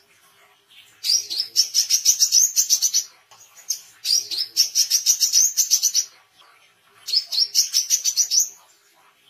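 Male brown-throated sunbird singing in three bursts, each a fast run of evenly repeated high notes lasting about one and a half to two seconds, with short gaps between them.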